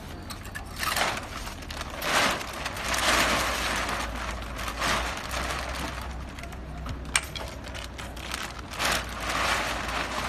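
Large aluminium foil barrier bag crinkling and rustling in irregular swells as it is handled, with a few sharp crackles, over a low steady hum.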